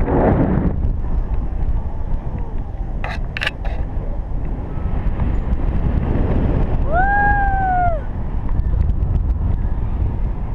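Wind rushing over the camera microphone in paraglider flight, a steady low rumble. A few sharp clicks come about three seconds in, and a short tone that rises and then falls comes about two-thirds of the way through.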